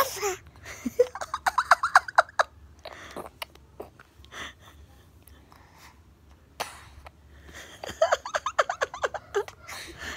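A baby vocalising: a short high squeal, then two quick runs of repeated babbling sounds, one about a second in and one near the end, with scattered mouth clicks between them.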